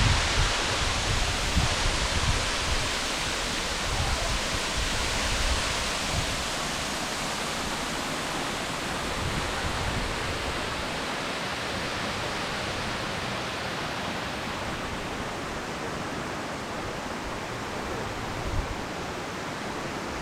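Waterfall rushing in a steady, even roar, with gusts of wind buffeting the microphone in the first few seconds and once near the end.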